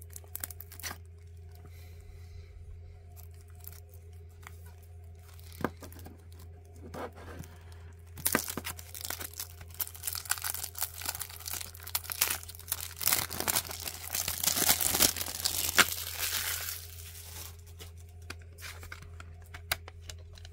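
Plastic shrink wrap being torn and peeled off a CD jewel case. A few small crinkles and clicks at first, then several seconds of loud crinkling and tearing from about the middle, settling to light handling noise near the end.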